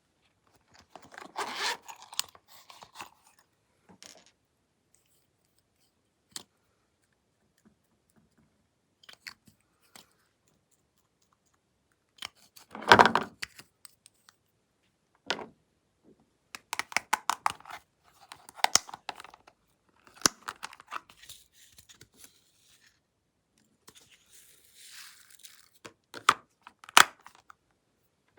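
Glossy slime being pressed, stretched and pulled apart by hand, making sticky crackling and tearing sounds in intermittent bursts with quiet gaps between them, the loudest about halfway through.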